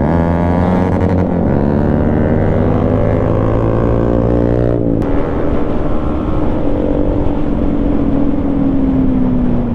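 Yamaha MT-15's single-cylinder engine pulling under acceleration, its note climbing for about five seconds, a brief break at a gear change, then running on in the higher gear with the pitch easing slightly.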